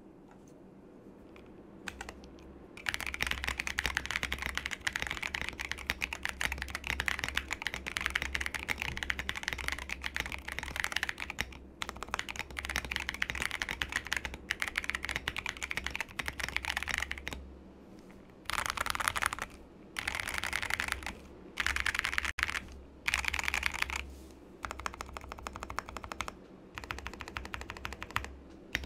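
Typing on an Epomaker Minicat64 mechanical keyboard with a stacked acrylic case, stock Drop Holy Panda tactile switches, XDA PBT keycaps, a two-layer tape mod and stabilizers lubed with dielectric grease. Fast, continuous key clacks start about three seconds in, then break into short runs with brief pauses in the second half.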